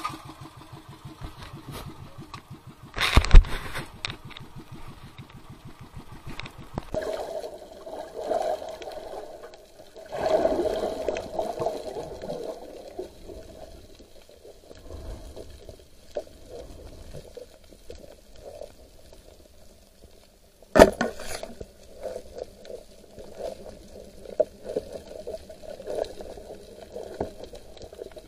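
A loud splash as the camera goes into the sea about three seconds in, then muffled underwater water noise, with another sharp knock a little past the middle.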